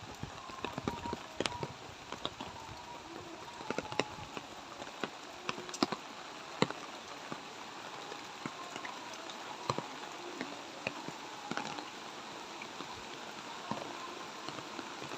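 Light rain falling steadily, with irregular sharp drips and taps of drops landing close by, thick for the first several seconds and then thinning out.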